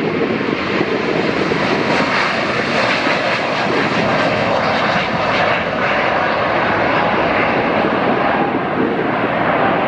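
Boeing 777-300 jet airliner's twin engines at takeoff thrust: a loud, steady jet engine noise as it finishes its takeoff roll and lifts off.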